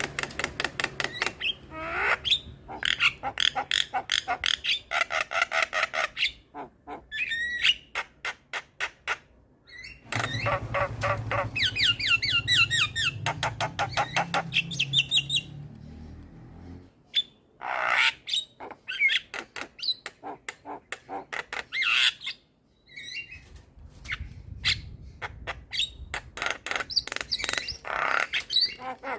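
Javan myna singing a varied, busy song: fast runs of rapid clicking, chattering notes and whistled phrases that sweep in pitch, in bouts with brief pauses between.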